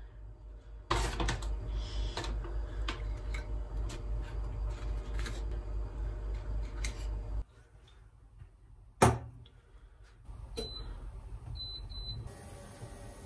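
Light clicks and taps of bread and crisp rusks being laid on a wooden tray over a low steady hum. After that comes one sharp knock about nine seconds in, then short high beeps from an induction cooktop's touch buttons as it is switched on.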